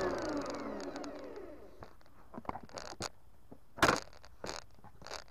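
Lawnmower switched off and spinning down, its whine falling in pitch and fading over about the first second and a half. Then a few scattered clicks and knocks, the loudest nearly four seconds in.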